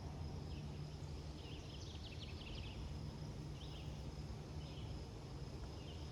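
Outdoor garden ambience: a bird chirping in short bouts, with a busy flurry of chirps about a second and a half in and a few single bouts later. Under it are a steady thin high tone and a low steady rumble.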